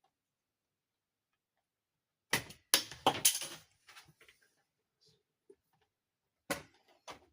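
Hard plastic dollhouse parts being handled: a quick cluster of clicks and knocks about two seconds in, a few faint ticks, then two more sharp clicks near the end.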